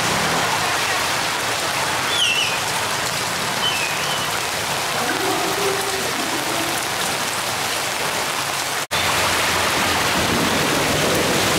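Heavy rain falling steadily on a flooded street: a constant dense hiss of rain and water. The sound cuts out for an instant about nine seconds in.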